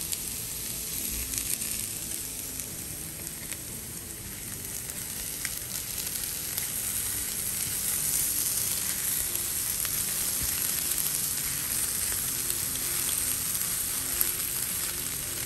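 Mashed green banana and chopped boiled egg sizzling in a frying pan as it is stirred with a spatula. The sizzle is steady and grows a little louder from about halfway.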